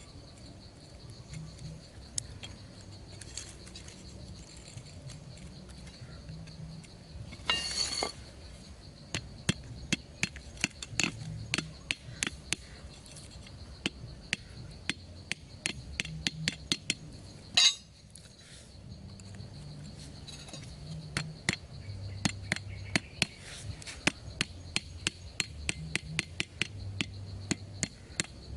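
Hand tool work: an irregular series of sharp chopping knocks and taps, several a second, with a louder rustling burst about eight seconds in and one hard knock a little past the middle. A faint steady high tone runs behind.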